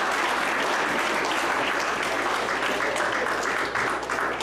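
A room of people applauding, steady dense clapping that thins out near the end.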